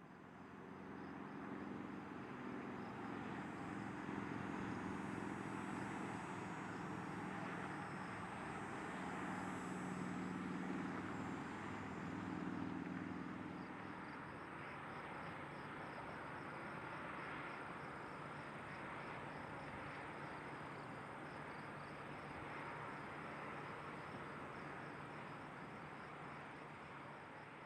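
Faint outdoor ambience: insects chirping in a fast steady pulse, over a low motor hum that eases about halfway through.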